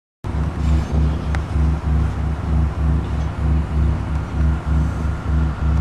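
A deep, low throbbing sound effect from GarageBand, pulsing evenly about twice a second. It cuts in suddenly just after the start, with faint hiss and a few clicks above it.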